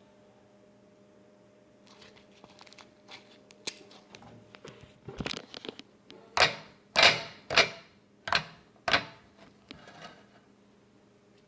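Homemade slime being squeezed and pressed by hand: soft clicks and crackles, then from about halfway a run of six louder squishing pops about half a second apart.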